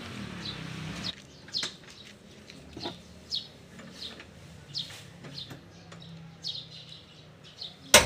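Light metallic clicks and knocks from the steel jack handle rod as it is fed through the rear bumper toward the spare-tire winch and the lug wrench is fitted to its end, ending in one sharp clank. A bird chirps over and over, about once or twice a second.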